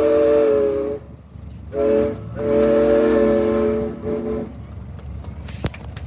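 Steam whistle on a 1921 Frick steam traction engine blowing in blasts: a long blast that stops about a second in, a short toot near two seconds, then a longer blast of about two seconds.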